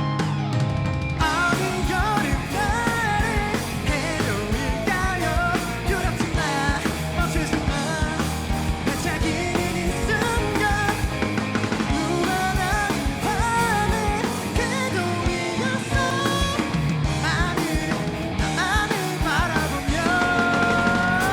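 Rock band playing live, a lead vocal singing over drums and guitars, with one long held note near the end.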